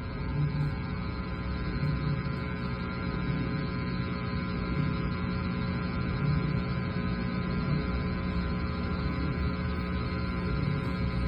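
A steady hum made of many level tones over a noisy background, with a faint pulsing in the low part every second or so.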